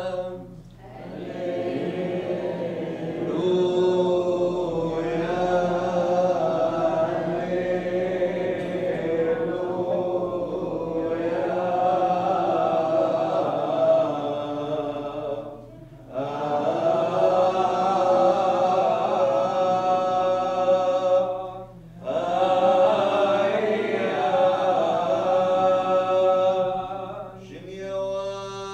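Chaldean liturgical chant before the Gospel, sung in long held phrases with two short breaths about 16 and 22 seconds in.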